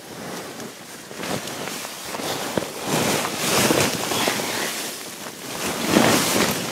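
Rustling and swishing of tent fabric and clothing close to the microphone as a person crawls into a small tent, coming in swells that are loudest about three to four seconds in and again about six seconds in.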